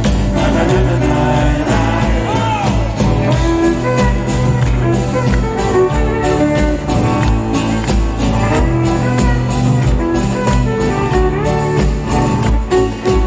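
Rock band playing live, an instrumental passage without lead vocals, over a steady drumbeat.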